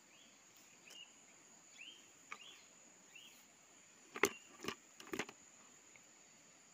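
Steady high-pitched insect drone in the open air. Over the first three seconds comes a run of short chirps, each rising and falling, and a few sharp clicks or knocks fall around four to five seconds in.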